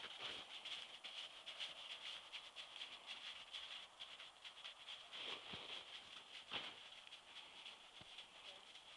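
Faint, quick, even run of soft footfalls: a Missouri Fox Trotter's hooves on snow as it is ridden at a gait, with a couple of slightly heavier steps about halfway through.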